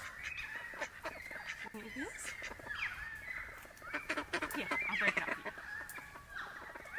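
Birds calling over one another in short chirps, whistles and squawks, over a steady high-pitched tone.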